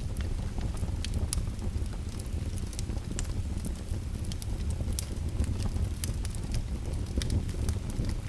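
Fire crackling: irregular sharp snaps and pops scattered over a low, steady rumble.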